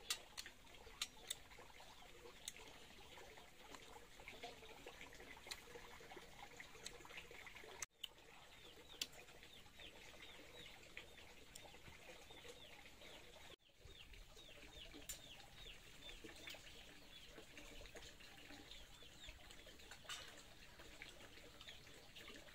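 Faint outdoor ambience full of small birds chirping: many short, quick, falling chirps, thickest in the middle stretch, with a few light clicks scattered through. The sound cuts out abruptly twice.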